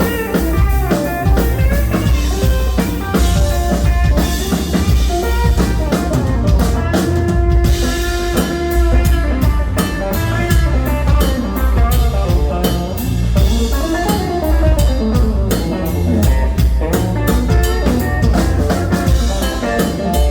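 Live instrumental band music: a Telecaster electric guitar playing a blues-style lead over a drum kit, with frequent drum and rimshot hits.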